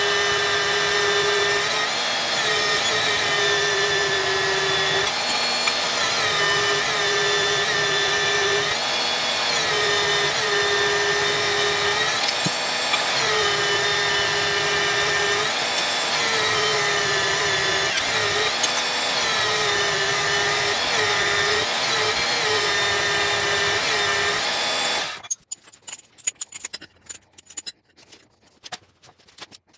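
Vertical metal-cutting band saw running and cutting through a steel plate, a steady whine whose pitch sags and recovers every second or two as the plate is pushed into the blade. The sound cuts off suddenly about 25 seconds in, leaving only faint clicks.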